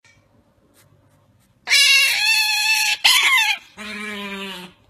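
Pet otter calling loudly while it is offered food by hand: two high, wavering calls starting about a second and a half in, then a lower, steadier call near the end.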